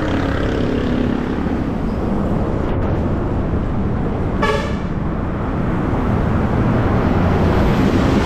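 A vehicle horn honks once, briefly, about halfway through, over a steady low rumble of wind and road traffic.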